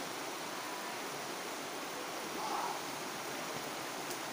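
Fast-flowing river water rushing steadily, with a short, faint sound a little past halfway through.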